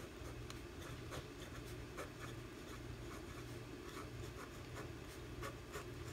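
Lamy fountain pen nib scratching across planner paper as words are handwritten: faint, short irregular strokes.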